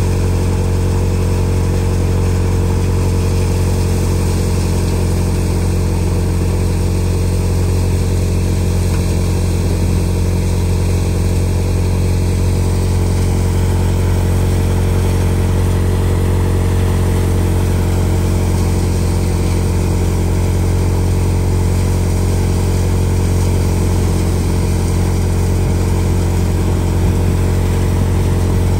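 Swaraj tractor engine running steadily under load, driving a threshing machine that is being fed with green gram (moong) plants.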